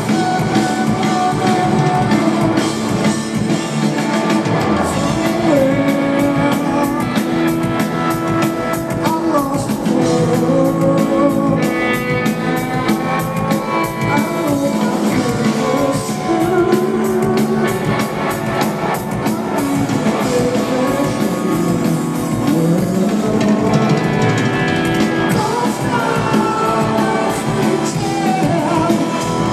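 A rock trio playing loud and live: drum kit, electric guitar and electric bass, with a voice singing over them.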